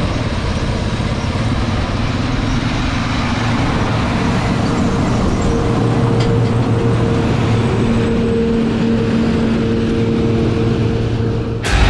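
Amadas peanut combine and the tractor running beside it during peanut harvest: a loud, steady engine and machinery drone, with a steady whine joining about halfway through.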